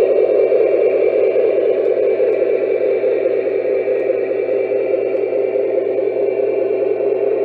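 Lionel Union Pacific #73 Veranda gas-turbine model locomotive running on its track: a steady rushing rumble with a faint high whine, easing slightly as the train moves away.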